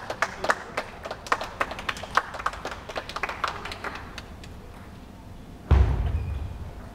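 Scattered clapping and sharp taps of table tennis balls in a sports hall, thinning out after about four seconds. A sudden loud low thump comes near the end.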